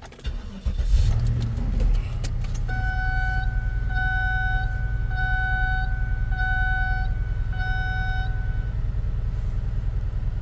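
The 2008 Cadillac DTS's Northstar V8 cranks and starts about a second in, then idles steadily. From about three seconds in, the PAC RP5-GM31 interface's warning chime sounds through the Sony stereo's speakers as five even electronic beeps about a second apart. This is the replacement for the factory chime, and its sound cannot be changed.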